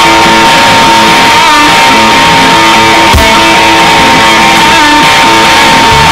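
Loud rock music led by electric guitar, with a single high note held through nearly the whole passage and let go near the end.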